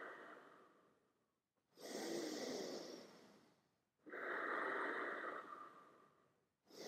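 Slow, audible breaths close to the microphone: about three long breaths, each a second and a half to two seconds, with short silences between, as a person holds a yoga pose.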